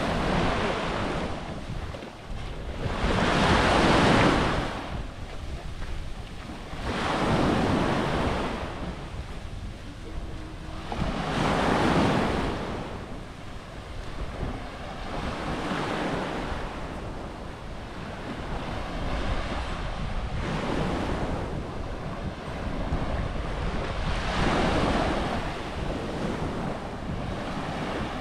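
Small waves washing onto a sand beach, each wash swelling and fading about every four seconds, with wind rumbling on the microphone.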